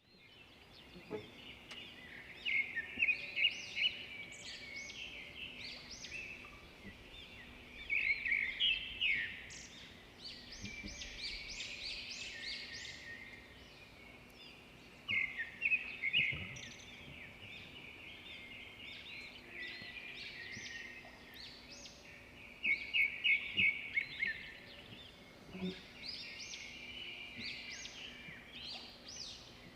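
Small birds singing outdoors: clusters of quick, high chirps and trills come every few seconds, over a faint steady low hum.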